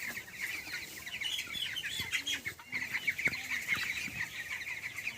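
A flock of 19-day-old broiler chicks peeping continuously, many short overlapping chirps forming a steady chorus.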